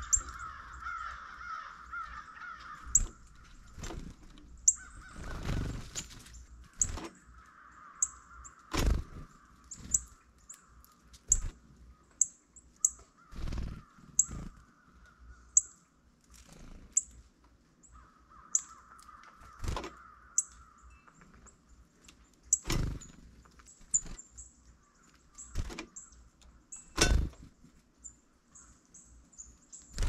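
Crows cawing in several harsh bouts of repeated calls, over short high chirps of small birds and scattered sharp taps.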